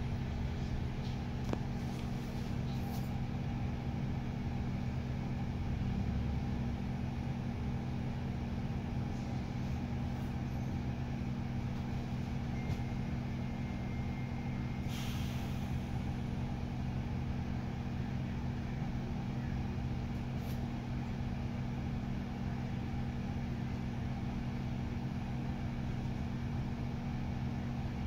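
Double-decker bus idling while stopped, heard from inside the upper deck: a steady low engine hum, with a short hiss of air about halfway through.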